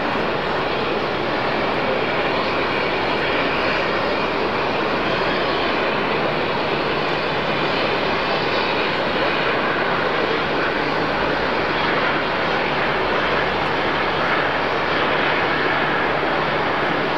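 Jet airliner engines giving a steady, continuous rushing noise, with a deeper rumble swelling briefly a little past the middle.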